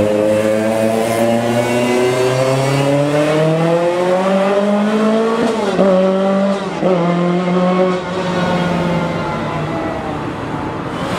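Rally car engine accelerating hard, its note climbing steadily for about five seconds, then two quick upshifts about a second apart, after which it runs on at a steadier, slowly falling pitch.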